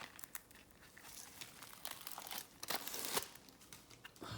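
Trading-card box packaging being crinkled and torn open, with irregular crackling that is loudest about two and a half to three seconds in.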